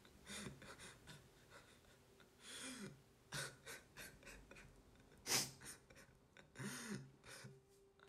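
A person breathing heavily and unevenly: a string of sharp gasps and pants, a few carrying a short rising-and-falling voiced sound, with the strongest gasp about five seconds in.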